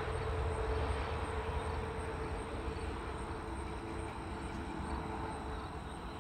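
Steady low outdoor rumble with a faint droning hum that slowly fades away.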